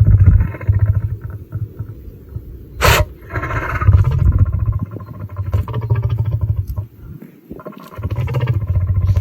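Lion sneezing once, sharp and sudden, about three seconds in, among low, pulsing lion growls and grunts.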